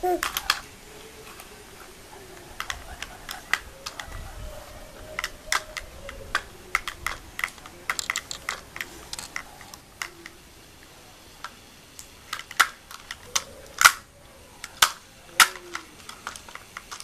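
Hard plastic toy clicking and knocking against a hard floor as a baby handles it: irregular sharp taps in clusters, loudest around the last few seconds. Faint brief baby vocal sounds come now and then between the taps.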